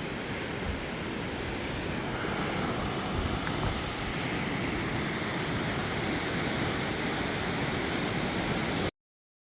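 River Dee in spate, high fast water rushing steadily below the bridge, with wind buffeting the microphone. It cuts off suddenly near the end.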